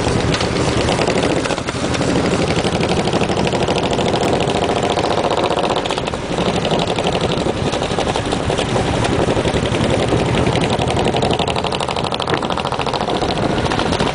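Cruiser motorcycle engine running steadily at road speed, close by, mixed with wind and road noise.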